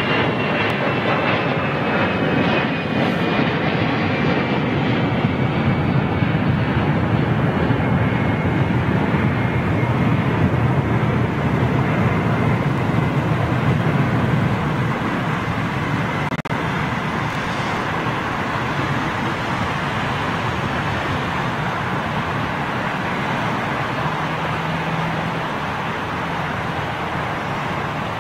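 British Airways Boeing 787 Dreamliner's Rolls-Royce Trent 1000 jet engines at takeoff power during the takeoff roll: a steady, loud jet roar that eases slightly about halfway through, with a faint high whine slowly falling in pitch early on.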